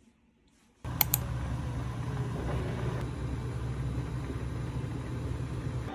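A steady low machine hum starts abruptly about a second in, with two sharp clicks just after it begins.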